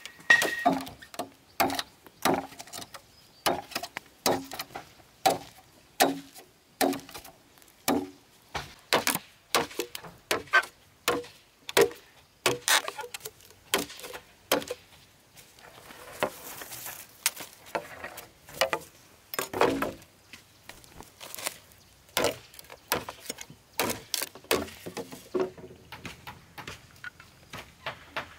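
Machete chopping green bamboo poles: a long run of sharp chops, one or two a second, some with a brief ringing knock.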